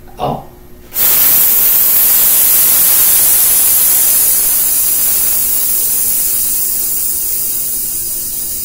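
A man hissing out a long, steady "sss" breath: a controlled exhale in a breath-support warm-up. It starts abruptly about a second in and fades gradually near the end.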